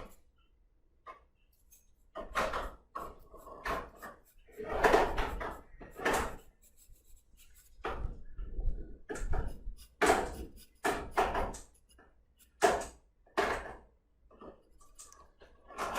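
Sketching strokes on paper: a drawing tool scratching across the sheet in quick, irregular strokes with short pauses between them.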